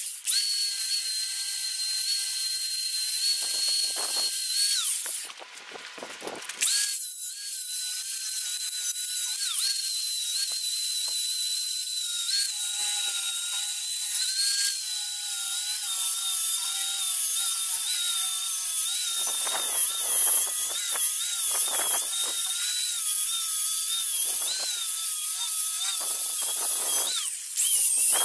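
DeWalt angle grinder running with a high whine, its disc grinding down a welded steel bracket on a rear axle housing; the pitch wavers and sags as the disc bites into the metal. It drops out briefly about five seconds in and spins back up.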